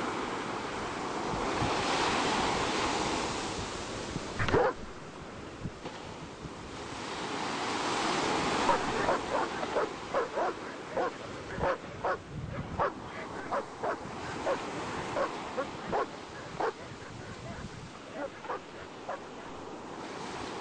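A dog barking over the steady wash of surf: one falling yelp about four seconds in, then a run of short barks at about two a second through the middle and later part.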